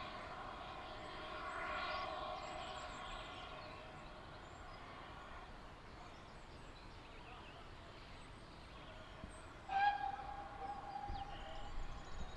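Steam locomotive whistle of GWR 29xx 'Saint' No. 2999 blown once, a sudden short steady tone about ten seconds in, which here answers the guard's green flag as the right-away for departure.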